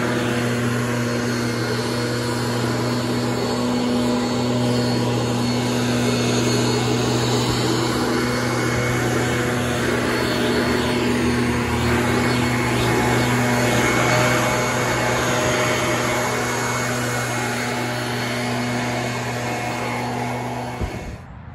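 Backpack leaf blower running steadily: a constant engine hum under a broad rush of air. It cuts off abruptly near the end.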